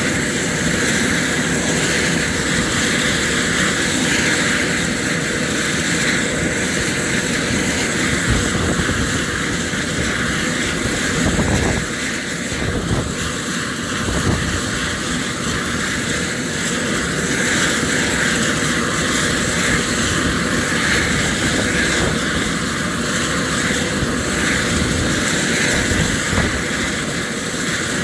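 Eurocopter EC130 helicopter running steadily on the ground, its Arriel turboshaft engine and main rotor turning at a steady pitch.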